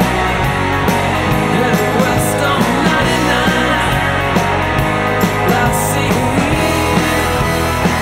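Loud rock music.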